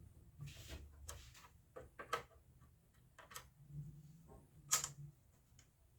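Screwdriver tightening a screw into a Janome sewing machine's plastic cover, giving faint, irregular clicks and scrapes of the tool and the plastic housing.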